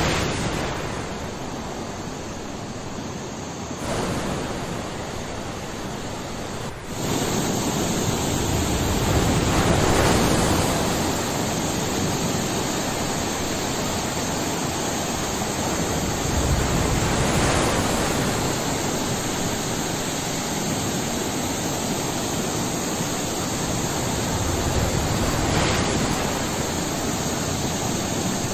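Muddy floodwater rushing and churning over a low wall, a steady rush of water; it gets louder suddenly about seven seconds in.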